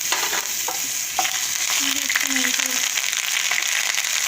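Ginger paste and radhuni paste sizzling in hot oil in a frying pan, with a few sharp knocks of the spatula stirring them in during the first second or so.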